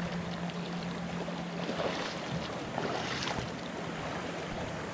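Lake water splashing as a long-handled landing net scoops a hooked muskie in the shallows, over a steady rush of wind and lapping water. A low hum fades out about a second and a half in.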